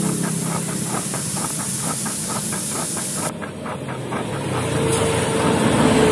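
Steady hissing noise with a low engine-like running sound underneath, like a motor idling. The high hiss thins out about three seconds in.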